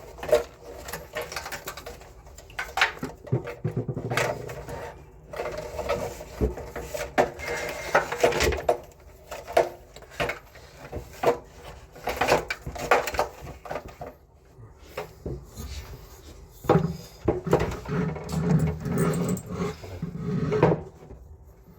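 Irregular clicks, knocks and rattles of tools and parts being handled during repair work on the air-conditioner's indoor unit.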